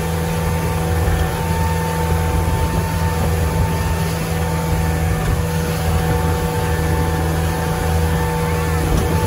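Motorboat engine running steadily at speed while towing, a constant drone with a faint steady whine above it, mixed with the rush of the churning wake and spray.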